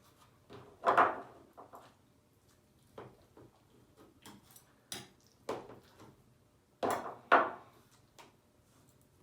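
Close-miked mukbang eating sounds of a vegan lasagna: wet mouth noises and chewing, with two louder sloppy bites about a second in and around seven seconds, and softer smacks and clicks between.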